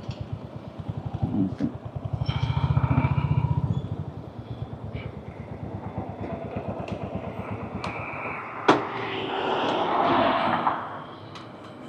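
Royal Enfield Hunter 350's single-cylinder engine running with an even beat, louder about two to four seconds in as the bike pulls away, with a sharp tap and a short noisy swell near the end.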